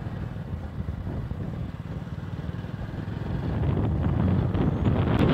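Motorcycle engine running as the bike is ridden along a road, heard from the rider's seat. It grows louder about three and a half seconds in. A single sharp tick comes just before the end.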